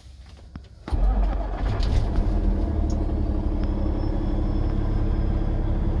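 Peterbilt 389 semi truck's diesel engine starting about a second in, catching at once and settling into a steady idle, heard from inside the cab.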